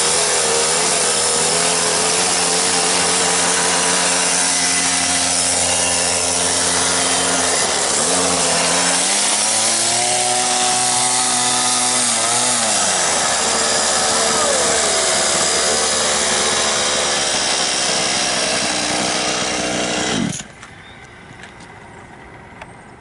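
The small engine of a home-built quarter-scale RC car running hard and revving up and down, its pitch rising and falling. The sound stops suddenly about twenty seconds in.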